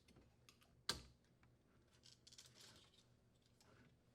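A single sharp plastic click about a second in, then faint rustling and small ticks of plastic parts being handled, as a refrigerator drawer glide's wire harness support is detached.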